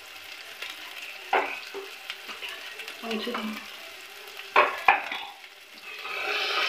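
Masala paste frying with a steady sizzle in a metal pan while a metal spoon stirs it. The spoon scrapes and knocks against the pan a few times, loudest a little before five seconds in.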